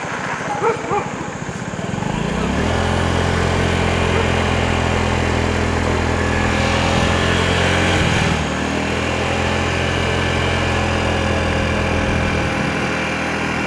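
Vehicle engine running steadily at an even speed, rising in about two seconds in, with a brief dip around eight seconds before settling back to the same steady note.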